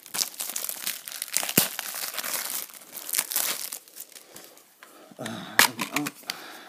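Plastic shrink-wrap being torn and crumpled off a Blu-ray case, a dense irregular crackling. It thins out after about four seconds, and there is a sharp click about five and a half seconds in.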